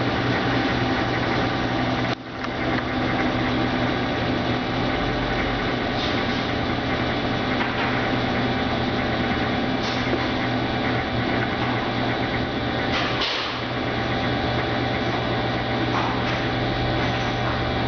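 Brastemp Ative BWL11AR washing machine running its spin cycle: a steady motor hum with the drum whirring, briefly dipping about two seconds in.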